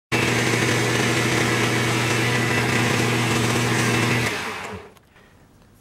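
Small metal lathe running under a turning pass, sped up fivefold, giving a steady high motor hum with cutting hiss. About four seconds in the motor is switched off and winds down to a stop.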